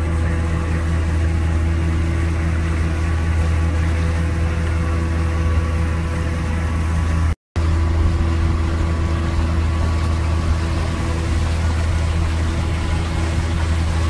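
Amphibious tour boat's engine running steadily with a low, even hum. The sound drops out completely for a moment about halfway through.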